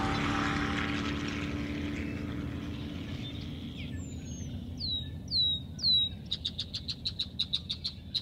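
Music fading out, then a bird calling: three short down-slurred whistles followed by a fast trill of about six sharp notes a second.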